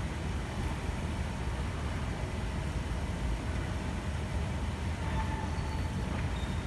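Steady low rumble and hum of a tram standing at a platform, heard in a large, echoing station hall.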